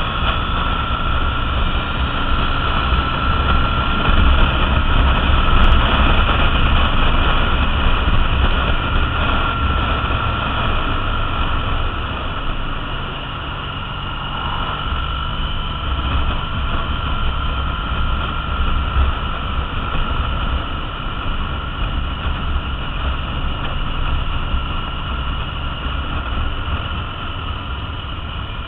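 Triumph Bonneville T100's air-cooled parallel-twin engine running at road speed under the rider, mixed with wind rush, steady throughout and a little louder in the first third before easing off around halfway.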